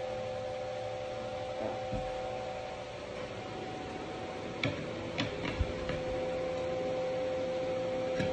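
Steady hum of an electric appliance, with a few light clicks about halfway through.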